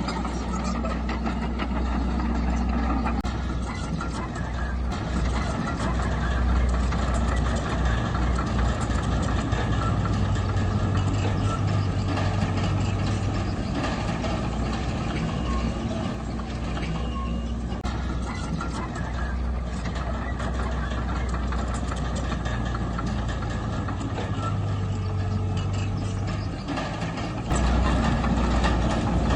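Diesel engine of heavy earthmoving machinery running steadily, its note shifting at times, and louder near the end.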